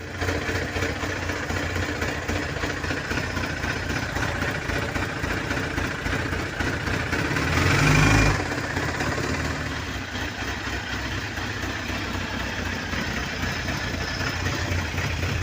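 Kawasaki GPZ900R's inline-four engine idling, revved briefly once about halfway through. It is running with the bad knocking noise for which the engine is being replaced.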